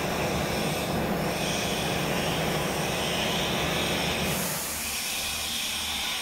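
REU 1326 ATC CNC router running steadily with a hiss, its head traversing the gantry over an empty table; the low part of the noise drops away about four and a half seconds in.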